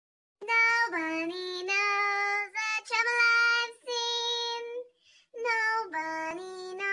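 A woman singing in a high voice, drawing out long held notes, with a short break about five seconds in.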